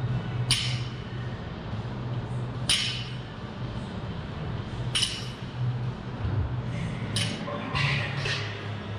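Metal weight plates clinking on a loaded barbell during deadlift reps: four sharp ringing clinks about two seconds apart, then a few softer clinks near the end as the bar comes down, over a steady low hum.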